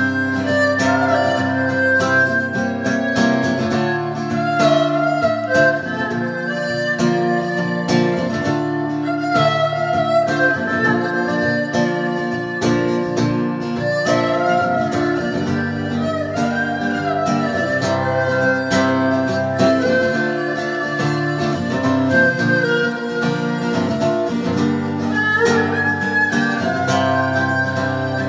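An erhu bowing a melody with sliding pitch over a strummed acoustic guitar accompaniment.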